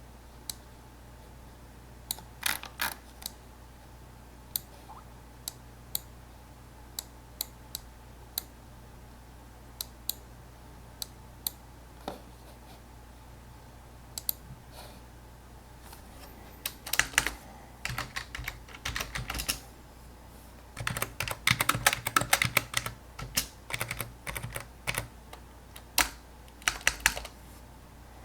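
Computer keyboard typing: single key presses or clicks about once a second at first, then fast runs of typing in the second half, over a low steady hum.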